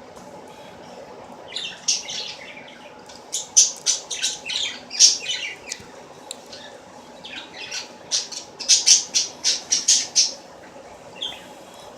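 A bird squawking in rapid runs of short, sharp, high-pitched calls, in three bouts, over a faint steady hum.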